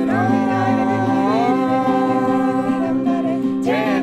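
An original song: one voice sings long held notes that slide between pitches, over a steady, evenly pulsing plucked-string and bass accompaniment.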